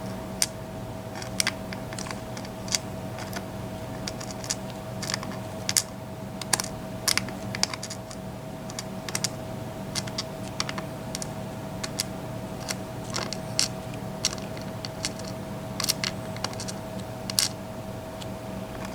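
Small, irregular clicks and taps of the tiny sliders from a disassembled Mul-T-Lock MT5+ lock being flipped over and moved about on a work surface, with a steady hum underneath.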